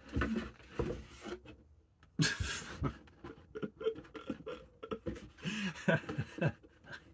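Paper and cardboard rustling as a flat card is drawn from a cardboard box, with a short louder rustle about two seconds in, then a man laughing in short breathy bursts in the second half.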